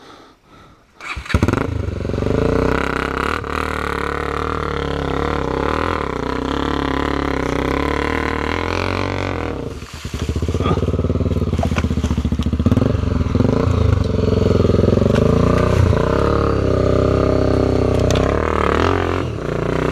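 Off-road motorcycle engine running hard under varying throttle. It comes in about a second in, eases off briefly about ten seconds in, then picks up again.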